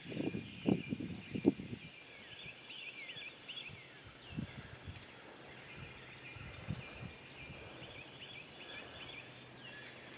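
A chorus of birds chirping and whistling, many short calls overlapping, with a few low knocks in the first second and a half.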